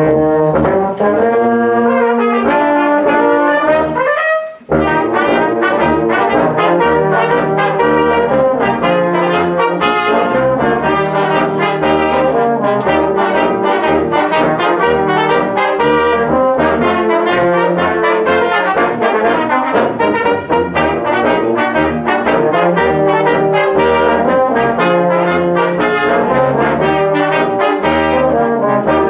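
Amateur church brass band of tenor horns, baritones and cornets playing a piece together. After an opening phrase without the low parts there is a brief break about four and a half seconds in, then the full band comes in with the bass.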